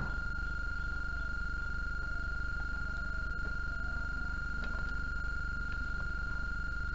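A steady high-pitched electrical tone over a low mains hum, unchanging, with a few faint clicks.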